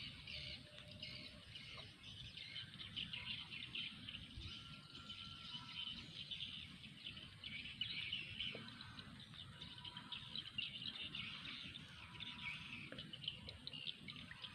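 Dense chirping and twittering of many small birds, a busy high-pitched chatter, over a low rumble.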